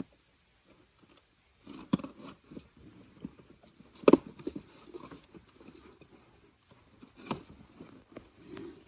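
Griddle parts and packaging being handled: rustling and rattling with a few sharp knocks, the loudest about four seconds in and another a little after seven seconds.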